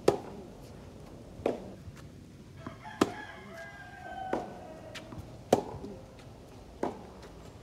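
Tennis ball hit back and forth in a rally on a hard court: sharp racquet strikes and ball bounces, about one every second and a half.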